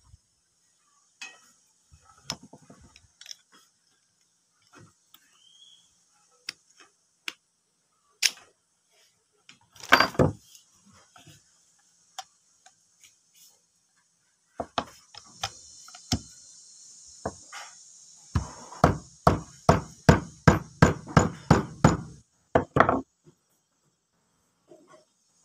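An angle grinder armature, with its bearing plate on, is knocked against a tool handle. There are scattered light knocks and clatter first, then a run of about a dozen even, sharp knocks at roughly three a second in the second half. A steady high hiss runs underneath from about midway.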